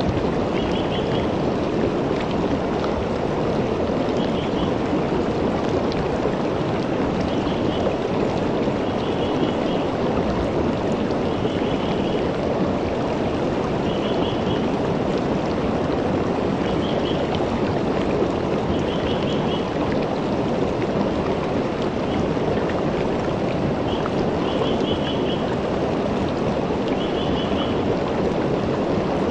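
River water flowing over and around rocks in a steady rush, with short high chirping calls repeating every second or two.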